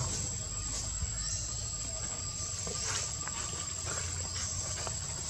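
Insects droning: one steady high-pitched whine, over a low rumble.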